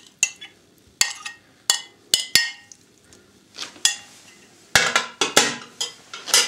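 A spoon clinking and scraping against white ceramic plates as fried vegetables are scooped from one plate into a serving dish. There are scattered sharp taps, then a quicker run of clinks and scrapes near the end.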